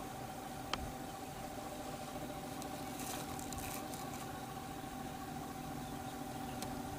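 Steady low hum with a faint constant tone, a single sharp click just under a second in, and brief faint rustling about three seconds in.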